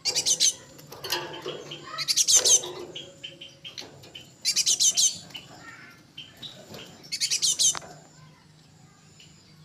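Young cinereous tits (gelatik batu) calling: four loud bursts of rapid, high-pitched chirps, each about half a second long and about two and a half seconds apart, with fainter chirps between them over a low steady hum.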